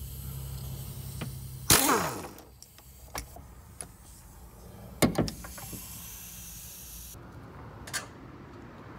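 The electric motor of a handheld power ratchet runs steadily on a 13 mm nut of the rear shock absorber's upper mount, then stops with a loud clack under two seconds in. A loud metallic knock follows about five seconds in as the loosened shock assembly is handled.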